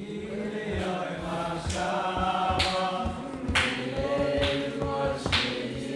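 A group singing a Shabbos song together in unison, a chorus of many voices holding long notes.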